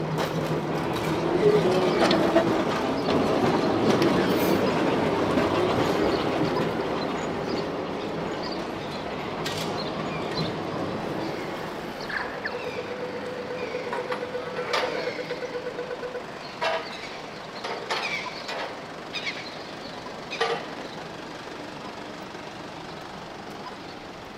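A tram running past on its rails, loudest in the first few seconds and then fading as it moves away. It is followed by a brief steady tone and a string of sharp clicks.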